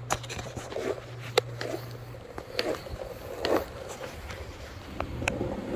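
Skateboard rolling over smooth polished concrete, with four sharp clicks spaced about a second apart, under a low steady hum that stops about two seconds in.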